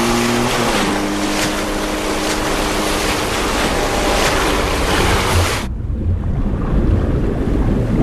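Motorboat engine running steadily over the rush of spray and waves. A little over two-thirds of the way through it cuts suddenly to a muffled underwater rumble.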